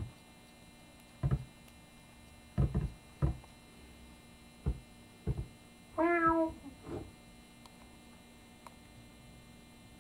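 Actor-voiced cartoon cat meowing once, a short call falling slightly in pitch about six seconds in, among a series of soft thumps and knocks from the cartoon's soundtrack as the cat pesters its sleeping owner.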